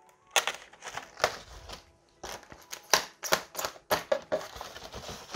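Packaging crinkling and rustling as parts are handled during an unboxing, with irregular sharp clicks and knocks.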